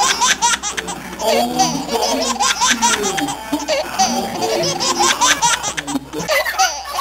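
A group of girls laughing loudly together, several voices overlapping, with bits of chatter mixed in.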